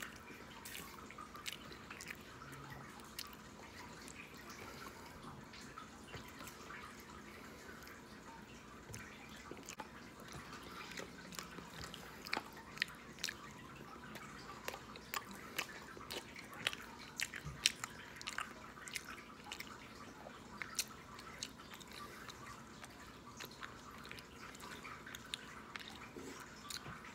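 Close-up chewing of a mouthful of loaded fries: wet mouth clicks and lip smacks, coming more often in the second half.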